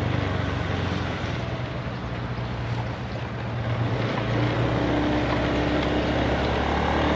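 Honda Scoopy i scooter's small single-cylinder engine running under way, with wind rushing over the microphone. The engine note sags about three seconds in, then picks up again and holds steady.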